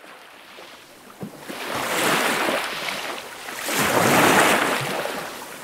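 Small waves breaking on a sandy beach: a surge of surf swells about two seconds in, crashes loudest around four seconds in, then washes back.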